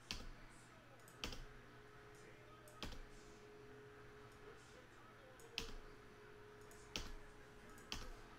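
Single sharp clicks at a computer, six in about eight seconds at uneven intervals, over a quiet background.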